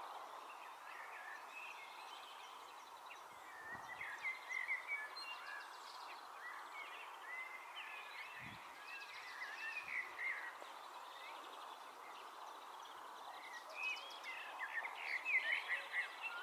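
Wild songbirds chirping and twittering in quick, short notes, coming in bursts and loudest near the end, over a steady outdoor hiss. There are a couple of soft low thumps.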